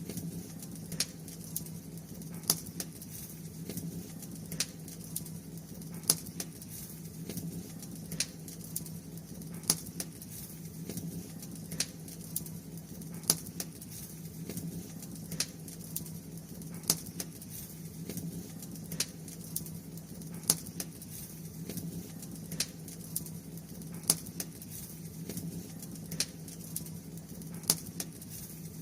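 Bonfire crackling: sharp, irregular pops and snaps, about one or two a second, over a low steady hum.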